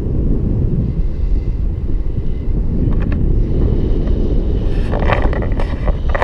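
Airflow from a paraglider's flight buffeting the camera microphone: a loud, steady wind rumble. Brief higher crackles join it near the end.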